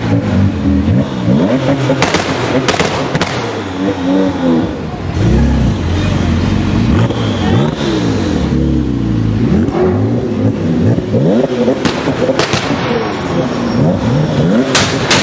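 Porsche 997 911 Turbo's twin-turbocharged flat-six being revved again and again, its pitch rising and falling with each blip of the throttle. A few sharp cracks come about two to three seconds in and again near the end.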